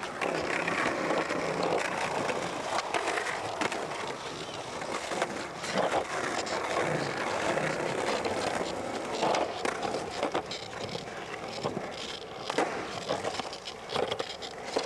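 Skateboard wheels rolling on rough asphalt and concrete, with several sharp clacks of the board hitting the ground and ledges.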